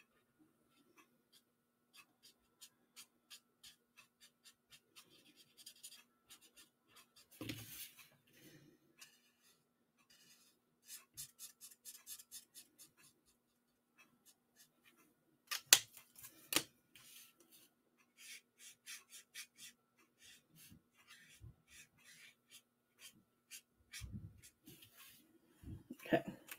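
Felt-tip alcohol marker (Stampin' Blends) stroking on small cardstock, many quick, light scratchy strokes as a stamped image is coloured in, with a few louder taps in between.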